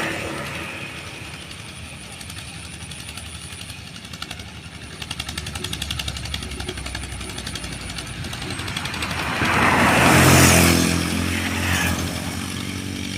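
Old tractor engine running with a fast, even beat, growing louder to a peak about ten seconds in.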